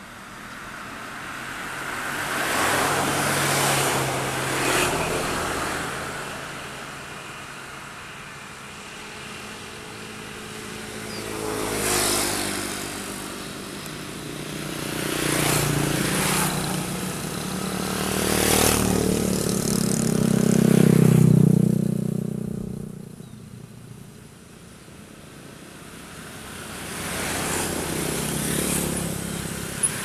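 Combine harvester's diesel engine running and being revved up and down in repeated swells. The longest and loudest rise comes about two-thirds of the way through.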